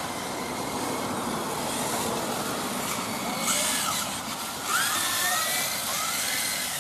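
1/10 scale Kyosho Fazer MK2 electric RC touring cars racing, their motors whining up and down in pitch as they speed up and slow down, over a steady hiss.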